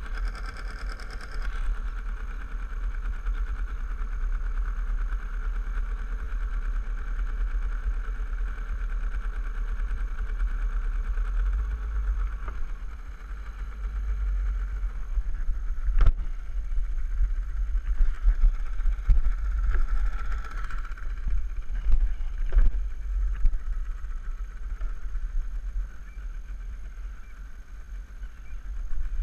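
Small open boat's motor running steadily with a low rumble, easing off about halfway through as the boat slows. A few sharp knocks follow in the second half.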